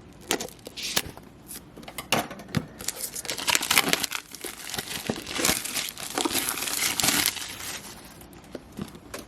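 Plastic wrap being peeled off a product box and crinkled in the hands: irregular crinkling and crackling with small tearing sounds. It is sparse at first, busiest through the middle, and thins out near the end.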